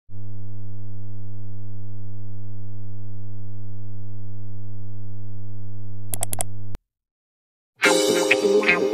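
Steady low electronic buzzing tone of a film-countdown intro effect, with a few sharp clicks near the end before it cuts off abruptly. After about a second of silence, music starts.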